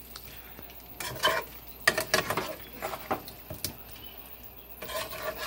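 Metal utensils clinking and scraping against cookware, a handful of separate clinks and knocks with the loudest about two seconds in.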